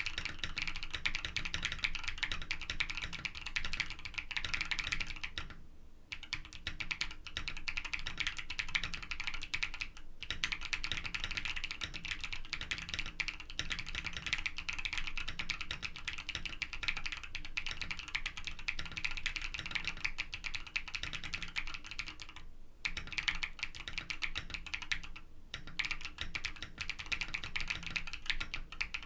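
Typing on a Mode Sonnet mechanical keyboard with a POM plate, TX stabilizers and Milky Way Voynich keycaps, fitted with stock, factory-lubed KNC Green Jacket tactile switches: a fast, steady stream of keystrokes with brief pauses about 6, 10, 23 and 25 seconds in. The switches give a loud, lower-pitched sound with little to no spring ping or scratchiness.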